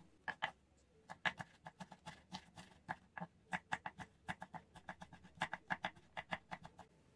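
Kitchen knife chopping ginger on a wooden cutting board: quick, uneven taps of the blade on the board, several a second.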